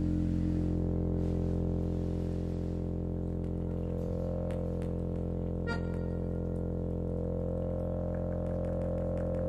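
Live ensemble music of sustained, drone-like held tones, with one sharp, ringing note about halfway through.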